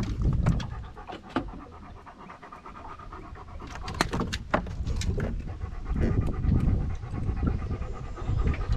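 A dog panting close to the microphone, louder at the start and again in the second half, with a few sharp clicks.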